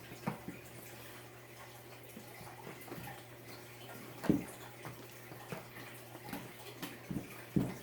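Homemade fluffy slime being kneaded and worked by hand: scattered short wet squishes and clicks, the loudest a little after four seconds in and again near the end, over a steady low hum.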